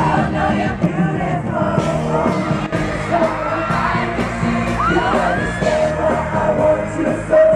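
Boy band singing a pop song live over amplified music, with the crowd yelling and whooping.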